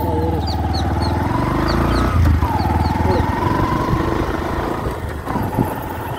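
Motorcycle engine running steadily as it is ridden, with a few faint high chirps in the first few seconds.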